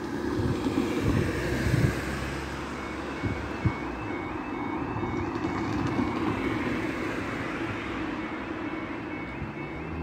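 Level-crossing warning alarm starting about three seconds in, a repeated yodelling tone about twice a second, as the crossing begins its closing sequence. Road traffic runs underneath, loudest early on as a vehicle passes.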